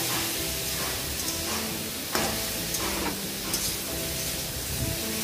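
Cubes of pumpkin and potato sizzling in hot oil in a kadai while a wooden spatula stirs them, with scrapes of the spatula on the pan, the sharpest about two seconds in.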